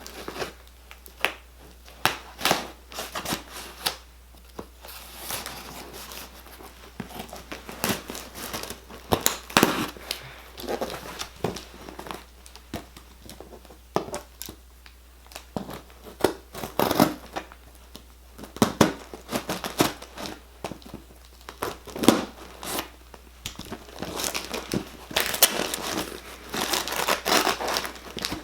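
Packaging of a boxed radio scanner being opened by hand: irregular crinkling and tearing, with many sharp handling clicks and knocks.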